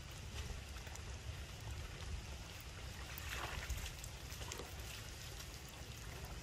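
Light rain pattering on a muddy pool, with faint scattered drip ticks over a low wind rumble on the microphone. A brief louder rush of noise comes about three and a half seconds in.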